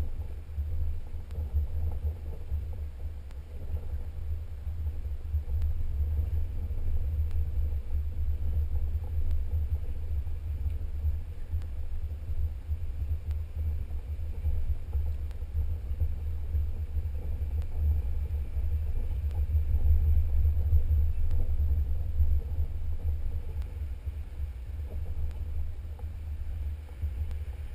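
Low, muffled rumble of a Jeep driving slowly over a rough dirt trail, picked up by a camera mounted on its hood, growing a little louder about two thirds of the way through.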